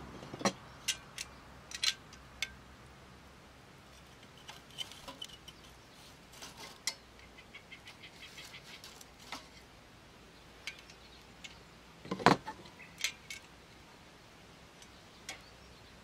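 Sharp clicks and knocks of a tool moving burning wood inside the firebox of a small titanium wood-burning stove. They are scattered, with fainter ticking in between, and the loudest knocks come about twelve seconds in.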